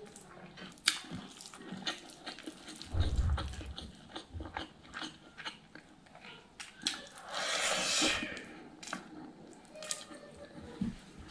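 Close-miked eating sounds: chewing and mouth smacks and clicks of a woman eating rice mixed with fermented soybeans by hand, with fingers working the rice on the plate. A low thump comes about three seconds in, and a second-long noisy rush about seven seconds in.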